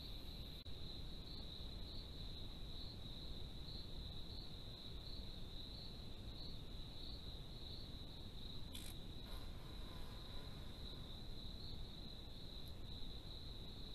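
Crickets trilling steadily at a high pitch, a continuous chorus that pulses slightly, with one brief rustle about nine seconds in.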